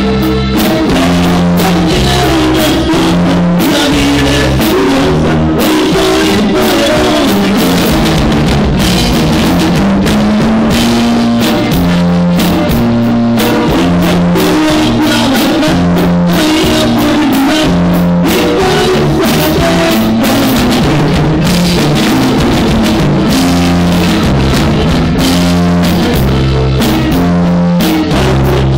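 Conjunto band playing a corrido, with drum kit, a stepping bass line and plucked strings keeping a steady beat.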